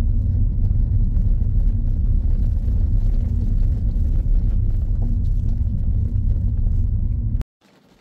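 Steady low rumble of a car driving, heard from inside the cabin, with engine and tyre noise. It cuts off suddenly near the end.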